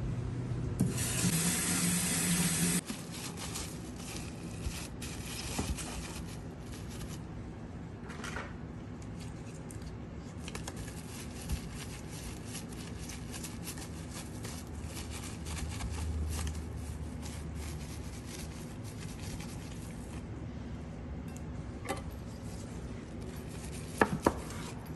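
Kitchen handling sounds while a sushi roll is rolled in a bamboo mat and sliced, over a steady low hum. A loud rustling hiss lasts for a couple of seconds near the start, with faint taps and rustles after it. Two sharp knocks near the end come as the knife cuts through the plastic-wrapped roll onto the granite counter.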